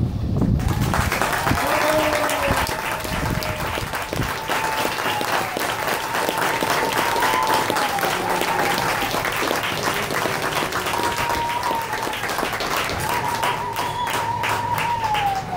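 Crowd applauding steadily, starting about half a second in, with voices cheering over the clapping.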